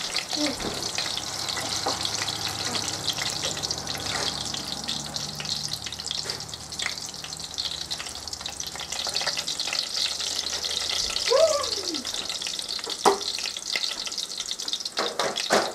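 Elephant-ear dough deep-frying in hot oil in an electric skillet: a steady crackling sizzle. A sharp click comes about 13 seconds in.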